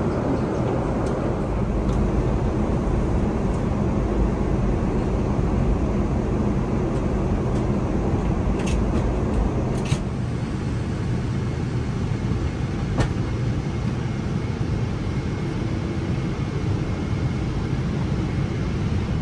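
Steady cabin noise inside a Boeing 777-200ER airliner: engines and airflow making a constant low rush, with a few faint clicks about halfway through.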